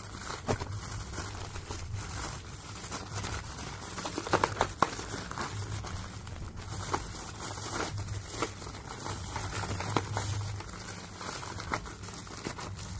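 Plastic courier mailer and bubble wrap crinkling and rustling as hands unwrap a parcel, with a louder run of crackles about four seconds in.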